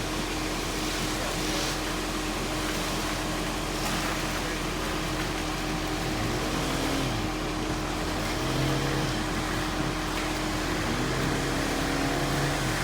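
An engine running steadily, its pitch rising and falling a few times as it revs.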